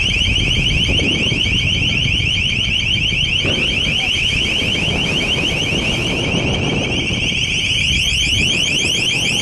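A long range acoustic device (LRAD) on the whaling ship blaring a piercing electronic alarm tone: a rapid, unbroken warble of short rising sweeps, many a second. A low rushing noise runs beneath it.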